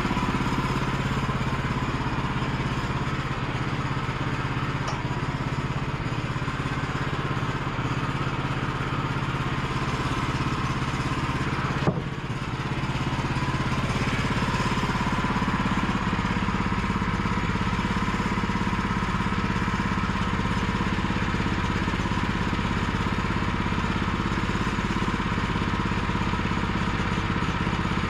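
Woodland Mills portable bandsaw sawmill's engine running steadily, with one sharp click about twelve seconds in.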